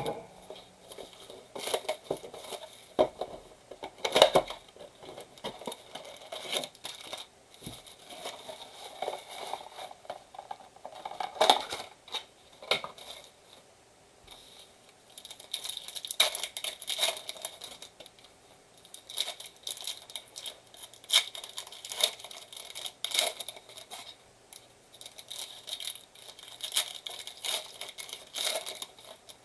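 Plastic wrap and foil packs of a trading-card blaster box being torn open and crinkled, in irregular bursts of crackling and ripping with small clicks from the cards and box being handled.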